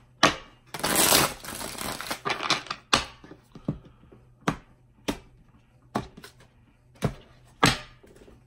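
A deck of tarot cards being handled: a short rustling shuffle of the cards about a second in, then a string of sharp card clicks and snaps, roughly one every half second to second, as cards are flicked and laid down on the table.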